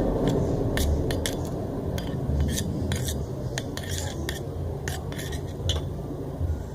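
Utensil clicking and scraping against a bowl while stirring slime ingredients (lotion and glitter glue), in irregular light clicks over a low, uneven thudding.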